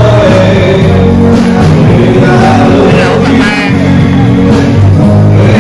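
Music with singing over a steady bass line.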